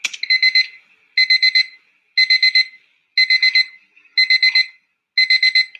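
Alarm clock beeping: short beeps in groups of four, about one group a second, repeating six times.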